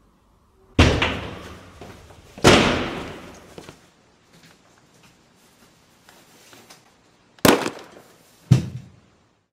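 Four loud bangs, each dying away over about a second: two about a second and a half apart near the start, then two more a second apart near the end, with faint knocks between.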